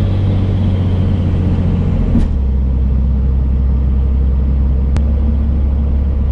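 Vehicle engine droning steadily while driving. Its pitch steps down abruptly about two seconds in and changes again about five seconds in, as the automatic transmission shifts gears. The shifts are hard: the driver says it slams into gear.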